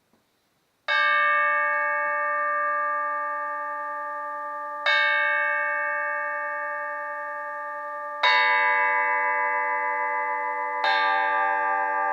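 Flat metal bells struck by hand, four strikes a few seconds apart. Each rings on long with several overlapping, unevenly spaced tones, and the later strikes bring in different, lower notes.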